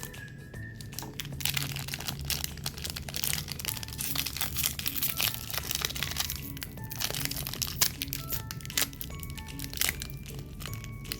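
Close-miked crunching of crisp cookies or snack cakes being bitten and chewed, a dense crackle that is thickest in the first half and flares again near the end, over soft background music.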